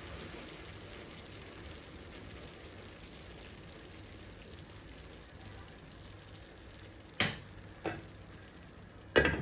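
Lamb mince and peas simmering with a steady sizzle in a large non-stick frying pan while a wooden spoon stirs it. There are two sharp knocks about seven seconds in, and a louder double knock near the end.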